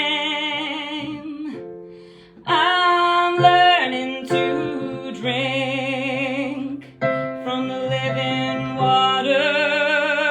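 A solo voice singing a slow worship song over sustained keyboard chords, holding long notes with vibrato. The music fades briefly about two seconds in before the next phrase.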